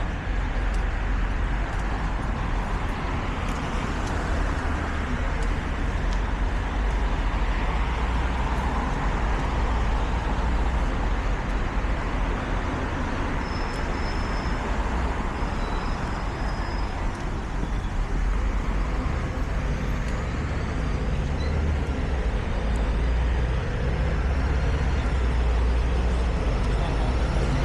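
City street traffic: a steady rumble of passing cars and buses. In the last few seconds a rising whine comes in as a vehicle speeds up.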